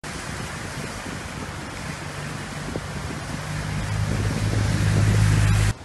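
Pickup truck driving through floodwater toward the microphone. Its low engine hum grows louder over the last few seconds above a steady rush of water and wind, then cuts off suddenly near the end.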